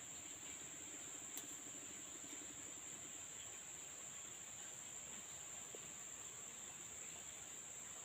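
Insects, crickets, making a steady high-pitched drone, with a faint click about a second and a half in.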